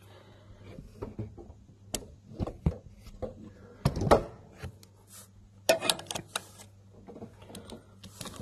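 Irregular knocks, rubs and clicks of a phone camera being handled and repositioned among engine-bay hoses, over a steady low hum.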